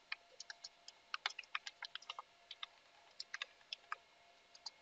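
Computer keyboard keys typed in quick, irregular runs of faint clicks as a password is entered.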